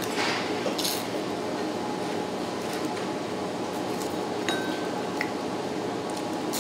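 Dishes and chopsticks clinking against tableware during a meal, with a couple of sharp clinks near the start over a steady background hum.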